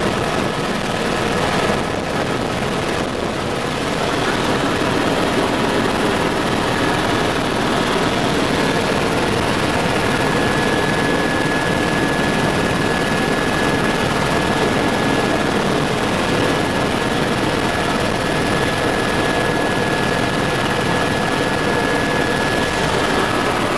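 Helibras HB 350 Esquilo helicopter in flight, heard from inside its cabin: a loud, steady rotor and engine noise. A thin high whine runs through it from about a third of the way in.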